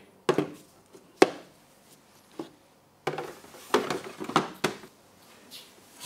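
Hard plastic clicks and knocks from handling the dehumidifier's clear water tank and its lid and handle: a sharp knock about a second in, a lighter one a little later, then a cluster of knocks in the second half.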